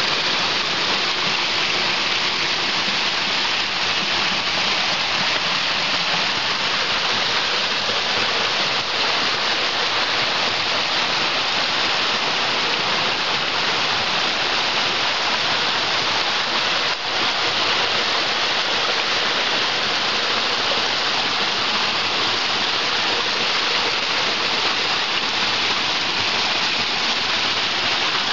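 Steady rushing of a rocky stream, water pouring between boulders and over small cascades, a constant hiss.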